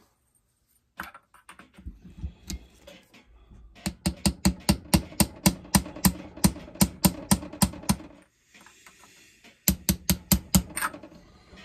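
Small hammer tapping lightly and quickly, about four to five taps a second, to drive a new crankshaft seal into a chainsaw crankcase. A few scattered knocks come first, then a long run of taps, a short pause, and a shorter run near the end.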